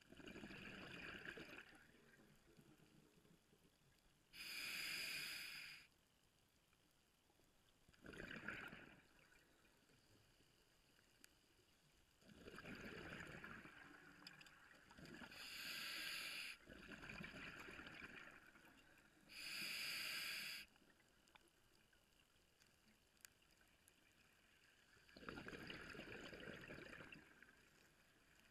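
Scuba diver breathing through a regulator underwater: about three short, sharp hisses of inhaled air and several longer, rumbling bursts of exhaled bubbles, spaced a few seconds apart.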